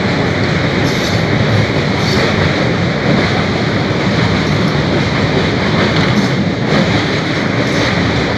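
A train running on the track, heard from on board: a steady rumble of wheels on rails with faint clicks now and then.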